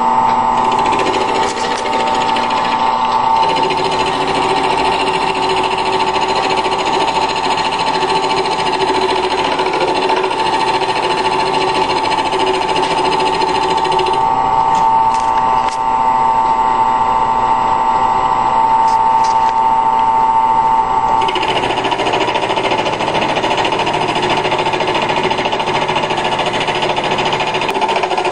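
Converted wood lathe running steadily with a whine, while a cutting tool turns down the diameter of a cast solid-aluminum workpiece. The higher cutting hiss drops away about halfway through and returns fuller a few seconds later.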